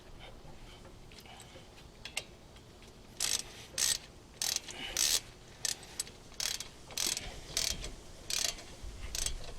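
Hand ratchet wrench clicking through about ten short strokes, starting about three seconds in, as a brake caliper bolt is tightened snug.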